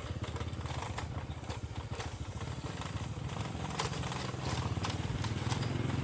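Small motorcycle engine running at low riding speed, a steady low rumble with scattered clicks and rattles over a rough lane; it grows a little louder about two thirds of the way through.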